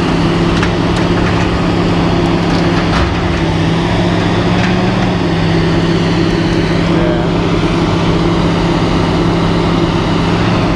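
An engine running steadily with a constant low drone, with a few light clicks over it.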